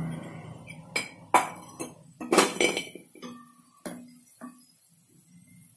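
Steel slotted skimmer clinking against an iron kadai and steel vessels while fried dumplings are lifted out of the oil: about half a dozen sharp metallic clinks, some ringing briefly, easing off near the end.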